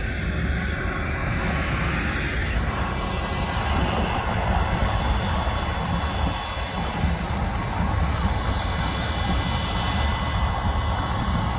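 A single-engine turbine helicopter running on the ground before takeoff: a steady low rotor rumble with a fine rapid flutter and a thin high turbine whine.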